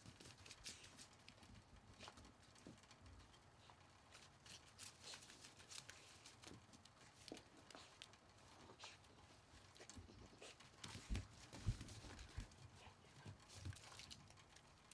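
Faint patter of a puppy's paws scampering over a snowy wooden deck, with a few soft thumps a little before the end.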